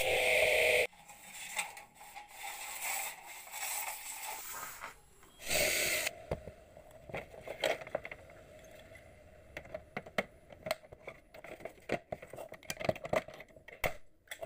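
Chop saw blade whining through a stack of aluminium roller-shutter slats, cutting off suddenly about a second in. Then come scattered light clicks, rattles and knocks of aluminium parts being handled, with one short louder burst around the middle.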